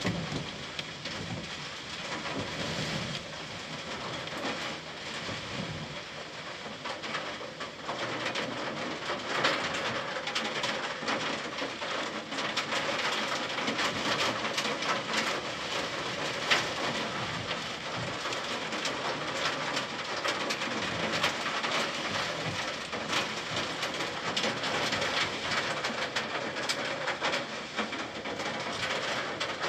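Heavy downpour: a steady rain hiss thick with the patter of drops hitting nearby surfaces. It grows somewhat heavier after about eight seconds.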